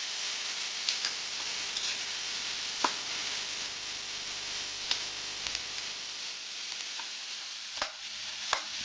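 Food frying in hot oil in a pan, a steady sizzle, with a utensil clicking against the pan now and then as it is stirred.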